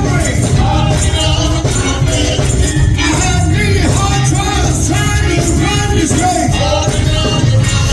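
Gospel music with singing over a full band accompaniment, with tambourine.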